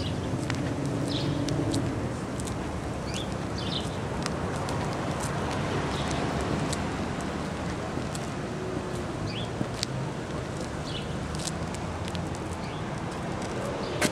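Outdoor street ambience: steady low traffic noise with small birds chirping now and then.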